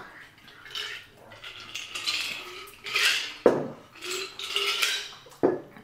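Dishes and utensils clattering during a meal: irregular scrapes and rustles, with sharp clicks about three and a half and five and a half seconds in.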